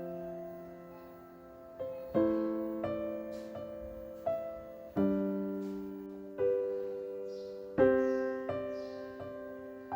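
Soft background piano music: slow chords struck every second or two, each left to ring and fade.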